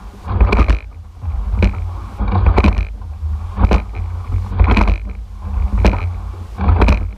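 Racing eight under way, heard from its rigger: sharp knocks about once a second, the oars working in the oarlocks through the stroke, over a steady low rumble of water and wind on the microphone.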